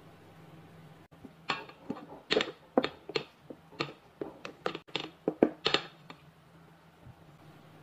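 Silicone spatula folding egg yolks into whipped egg whites in a stainless steel bowl: a quick, irregular run of about fifteen scraping strokes against the bowl, starting about a second and a half in and stopping about six seconds in.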